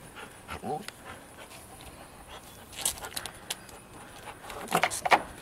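A tethered dog panting and jumping up against a wooden deck, with sharp clicks and scrapes from its claws and tether clip, and a short, louder vocal sound near the end.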